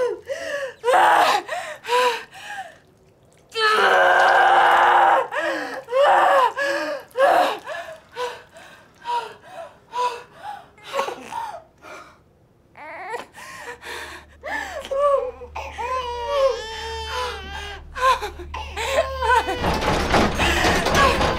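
A woman in labour gasping, panting and crying out in pain, with one long scream about four seconds in. A low rumble comes in during the second half, and a dense noisy swell builds near the end.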